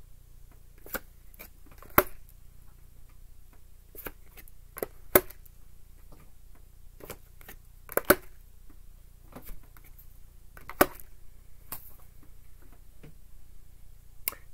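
Tarot cards being handled and laid down on a wooden table: scattered sharp clicks and taps, the loudest about two, five, eight and eleven seconds in.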